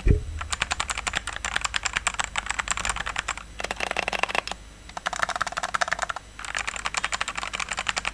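Mechanical keyboard with red linear switches being typed on rapidly, a fast clatter of keystrokes in four runs with short pauses between them. A low thump sounds right at the start, and a steady fan and air-conditioner hum runs underneath.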